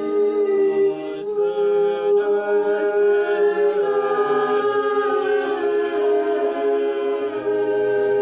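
Choir singing a cappella, one note held steadily while other voices move above and below it.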